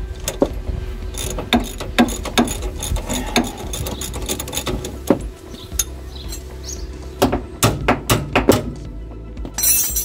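Ratchet wrench clicking in short bursts as it winds a loosened nut off a suspension bolt, with metal clinks in between; background music underneath.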